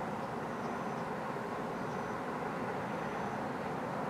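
Steady outdoor background noise, like a distant hum of traffic, with faint short high chirps repeating every second or so.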